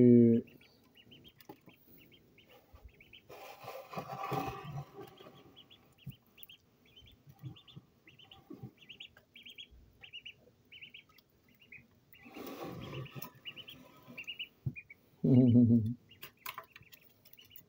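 A duckling peeping over and over in short, high chirps as it feeds. There are two spells of rustling, scraping noise, and a brief human voice near the end.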